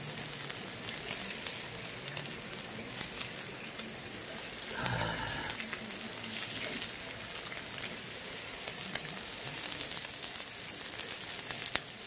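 Pork intestines and slices of pork belly sizzling on a cast-iron griddle, a steady hiss with scattered small pops.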